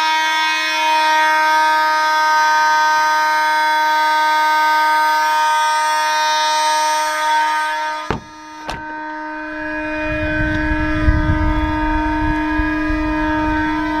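Vintage vibratone electronic fire alarm horns (Kidde FH104 and ADT B3407) sounding on continuous, set off by a smoke detector: one steady, buzzy tone. About eight seconds in come two sharp clicks, after which the horn goes on more muffled, with a low wind rumble on the microphone.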